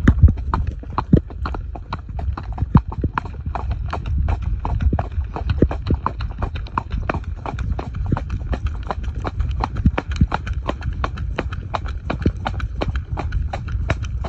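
Horse trotting on a tarmac lane: a quick, even clip-clop of hooves on the hard surface, with a low rumble underneath.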